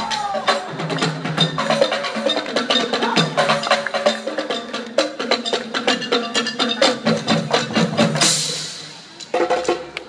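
Live stomp-style percussion on instruments made from recycled materials such as plastic: rapid, dense knocking hits with some deeper drum tones. A short burst of hiss about eight seconds in, then a brief lull before the hits resume.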